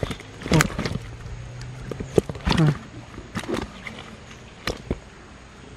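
A hand stirring a pile of freshly caught sepat (gourami) fish in a plastic-lined fishing bag: scattered sharp wet slaps, clicks and rustles.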